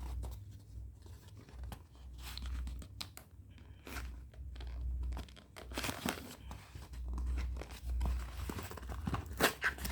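A package being opened by hand: irregular tearing, crinkling and rustling of packaging, with scattered clicks and low handling bumps and a louder flurry near the end.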